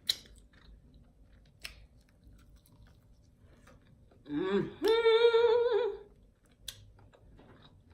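Close-miked chewing of fried chicken wings, with scattered short mouth clicks and crunches. About halfway through, a woman hums in enjoyment: a brief note, then a held, steady one lasting about a second.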